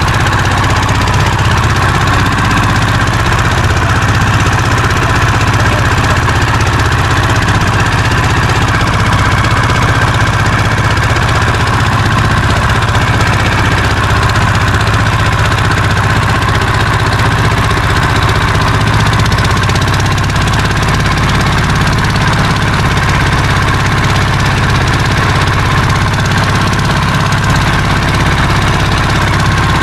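Inboard engine of a small wooden fishing boat running steadily with the boat under way.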